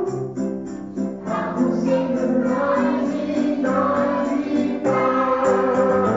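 Recorded children's song playing: a group of voices singing over a musical backing with a steady beat.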